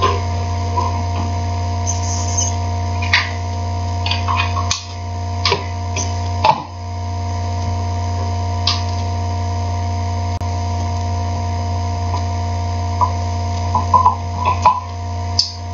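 Steady electrical mains hum, a low drone with several fixed higher tones above it, broken by a handful of small clicks and rustles of cables and connectors being handled.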